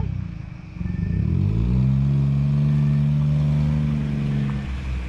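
Van engine revving up about a second in, holding a steady higher pitch for a few seconds, then easing off near the end as the vehicle drives slowly up across the grass.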